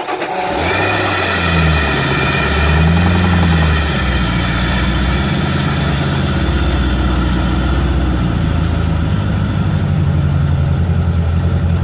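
PCM 5.8-liter marine V8 engine running just after an oil change, with hard knocking until the engine surrounds itself with fresh oil. Its pitch rises and falls a little in the first few seconds, then it settles into a steady idle.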